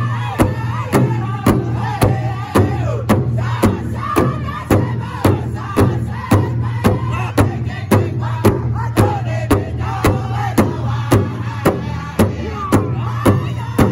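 Powwow drum group performing a crow hop song: several men strike one large hand drum in unison, about two beats a second, while singing together in loud, high voices.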